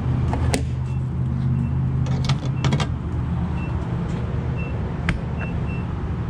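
Several clicks and knocks with a few short high beeps over a steady low hum, as a gas station fuel pump and its nozzle are readied for refuelling.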